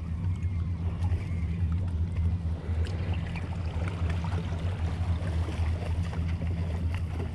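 An engine idling with a steady low hum, and faint small ticks over it.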